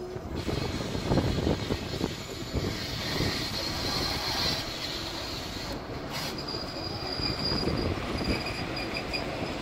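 Diesel locomotive approaching, its engine running and growing louder about a second in as it nears. A thin high squeal, typical of wheels on the rails, comes and goes in the second half.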